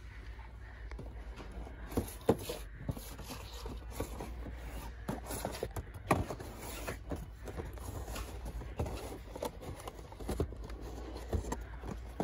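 Cardboard Funko Pop boxes being handled and shifted on a metal store shelf: irregular knocks, taps and scrapes over a steady low hum.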